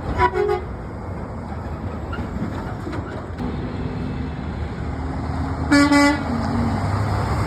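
A truck horn sounds one short, loud blast about six seconds in, over the steady rumble of passing road traffic that grows louder toward the end.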